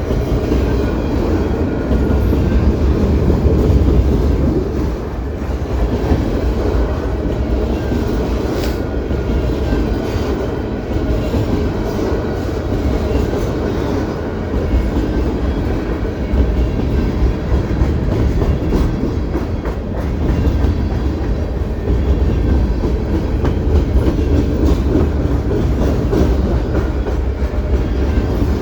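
CP Rail freight train's cars rolling past at close range: a steady rumble of wheels on the rails with a clickety-clack over the joints.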